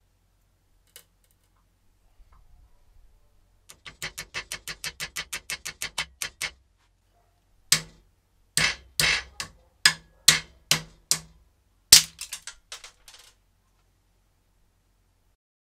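Metal wrench knocking against 3D-printed plastic test parts clamped in a steel bench vise. First comes a fast, even run of clicks, about six a second. Then come around eight hard, irregular knocks ending in a short rattle, as the PLA part breaks and the PETG part bends over.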